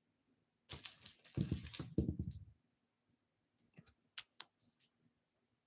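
A rustling handling noise lasting about two seconds, then a few faint single clicks of a computer mouse.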